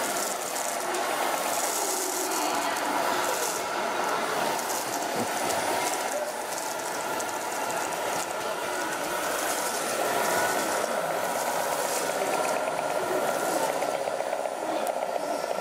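Sound module of a radio-controlled Scania model truck playing a V8 truck engine sound, running steadily as the model drives, over the chatter of people in the hall.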